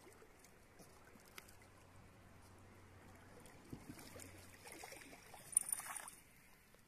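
Pug paddling and wading through shallow water: faint splashing and sloshing, with a louder splash about five and a half seconds in.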